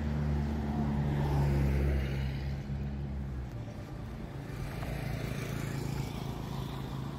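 A small hatchback car driving slowly past close by, its low engine hum dying away about three and a half seconds in, leaving a steady hum of distant street traffic.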